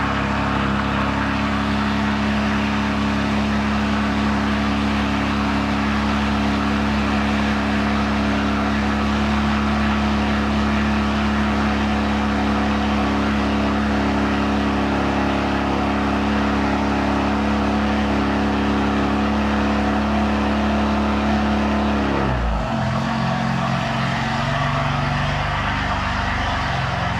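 Tuned BMW M4's twin-turbo inline-six running steadily, heard from inside the cabin with the windows down. About 22 seconds in, the engine note changes abruptly.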